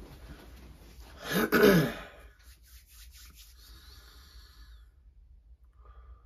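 A man clears his throat loudly once, about a second in, followed by faint rustling as he settles.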